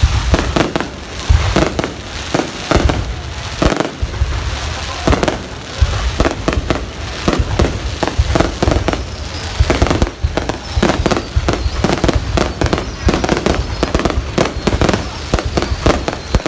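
Fireworks going off in a rapid, unbroken barrage: many sharp bangs and deeper booms overlapping, several a second.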